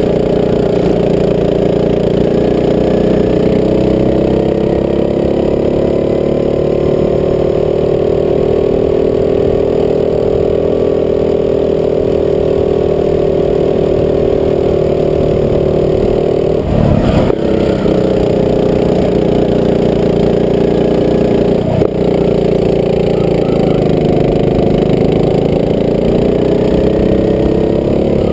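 Rental go-kart engine running under way, its pitch rising and falling gently as the kart speeds up and slows. A brief knock about two-thirds of the way through, and a smaller one shortly after.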